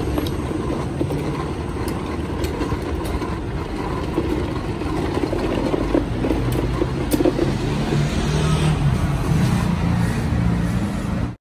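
City street traffic, cars passing on the avenue, as a steady rumble. A low engine hum grows stronger over the last few seconds.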